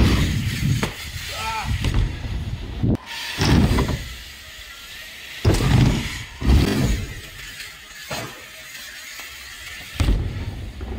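BMX bike riding wooden ramps: tyres rolling with several heavy thumps as the bike hits the transitions and lands.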